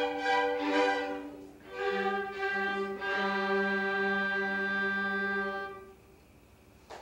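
Student orchestra of strings and woodwinds playing a few short chords, then a final chord held for about four seconds that cuts off near the end: the close of the piece.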